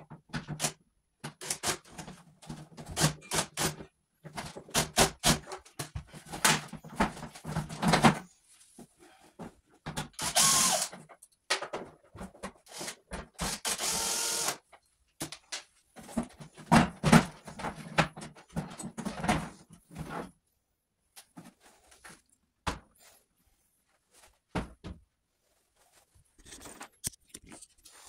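Cordless drill-driver running in short stop-start bursts, backing out the screws of a portable air conditioner's plastic casing, with scraping and knocks of the plastic panels and sparse clicks near the end as the casing comes off.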